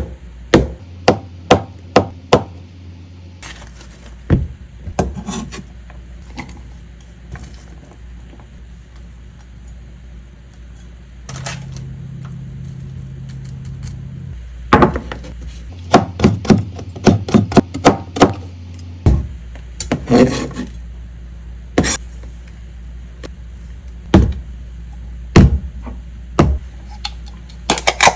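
Kitchen prep sounds: irregular sharp knocks and clacks of a knife, utensils and dishes on a counter or cutting board, some in quick runs of about two a second. A low steady hum runs for a few seconds near the middle.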